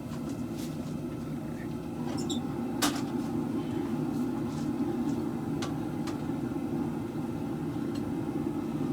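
Forge running with a steady low roar, with a few scattered light metallic clicks and one sharper clack about three seconds in.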